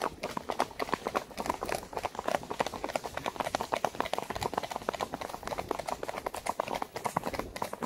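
Hooves of a Tennessee Walking Horse mare being ridden, a rapid, steady patter of hoof strikes.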